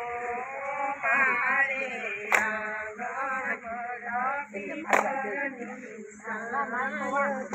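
Group of women singing a Gujarati garba folk song together while dancing, with a sharp hand clap about every two and a half seconds.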